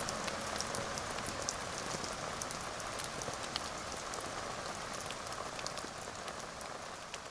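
Steady rain with scattered drops, the sound slowly fading toward the end.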